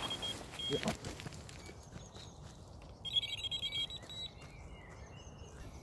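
Electronic carp bite alarm beeping: a short beep near the start, then a louder run of rapid beeps about three seconds in that lasts about a second, the sign of a take with a fish pulling line. Faint rustling and steps as the angler gets up.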